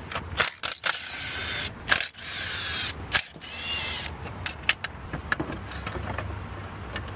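Handling noises from tools and parts: scattered sharp clicks and knocks, with three scraping, rustling stretches in the first four seconds, then lighter ticks.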